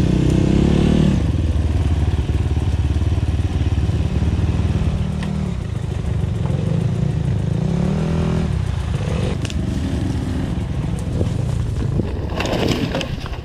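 Enduro dirt bike engine running under throttle off-road, its pitch rising and falling as the rider works the throttle, with a clear rev-up about eight seconds in and another near the end.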